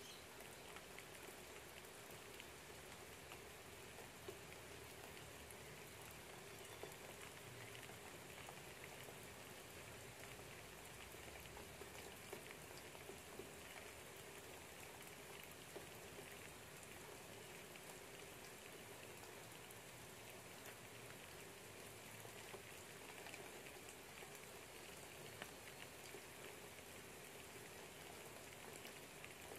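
Light rain pattering outside a window, faint and steady, with scattered small drips.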